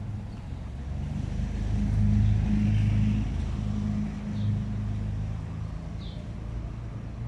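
A motor vehicle engine running close by, a low steady rumble that grows louder about a second and a half in and eases off after about four seconds.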